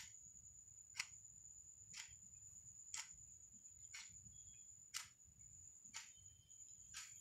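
Near silence with a clock ticking faintly, one tick each second, over a steady high-pitched whine.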